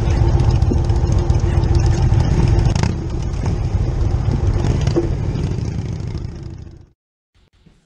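Motorcycle engine running with a rapid, pulsing low rumble. It gets quieter over the last few seconds and cuts off abruptly about seven seconds in.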